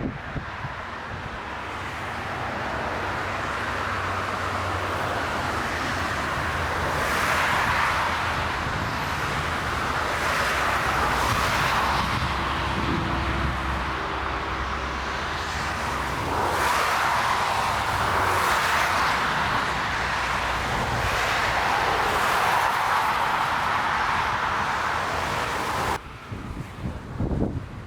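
Jet airliner engines on a landing approach, a steady loud rush that swells and eases, mixed with storm wind gusting on the microphone; it cuts off abruptly near the end.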